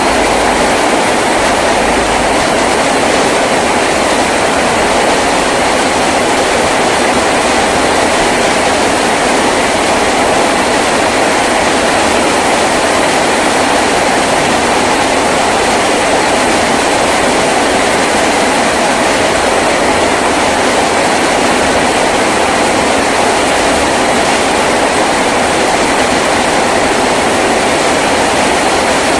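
Heavy rain drumming on a tin roof, a loud, steady, dense roar without a break.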